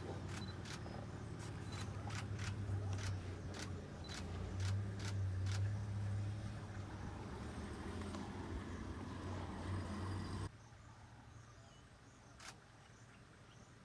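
Safari vehicle engine idling with a steady low hum that cuts off suddenly about ten seconds in. Camera shutter clicks sound over it, many in quick runs early on and a couple more near the end.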